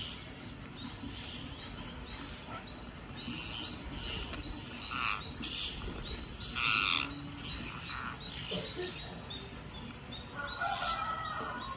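Rose-ringed parakeets calling with short, scattered squawks and chirps while feeding, the loudest a few seconds apart in the middle and a longer, lower call near the end.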